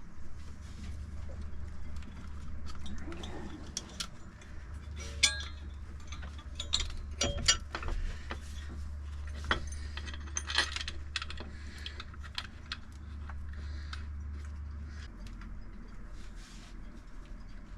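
Metal hand tools and bolts clinking and tapping, with a few sharp ringing strikes, as an alternator is refitted to the engine, over a steady low hum.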